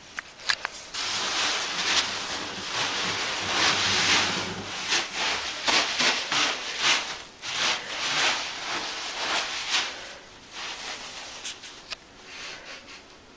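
Small white foam beads filling a bathtub rustling and hissing as a cat pushes and burrows through them, in surges with brief lulls. The rustle eases off about ten seconds in, leaving a few scattered clicks.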